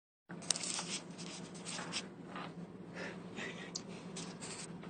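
A pet bird scratching and rustling about inside a refrigerator: a quick run of short, irregular scratchy sounds over a steady low hum.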